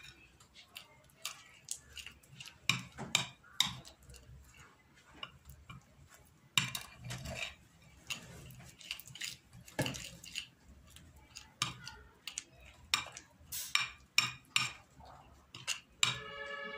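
A metal spoon stirring a thick paste of mashed black soap, turmeric and honey in a plate, scraping and clinking against the plate in irregular strokes.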